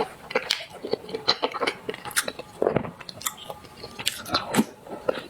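Close-miked eating sounds of a person eating black sesame paste: wet chewing, lip smacks and sharp mouth clicks in an irregular run.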